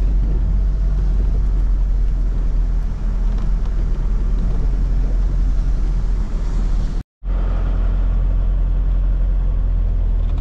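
A boat engine running steadily at a constant low pitch. It cuts out completely for a split second about seven seconds in, then carries on.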